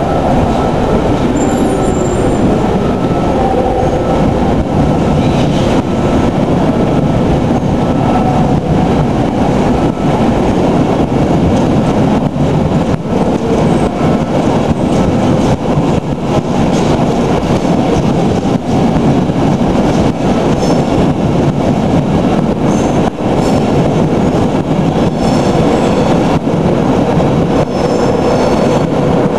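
InterCity 225 train of Mark 4 coaches, worked by a Class 91 electric locomotive, pulling out at low speed, its coaches rolling past with a steady loud rumble of wheels on rail. Faint high squeals come from the wheels over the last several seconds.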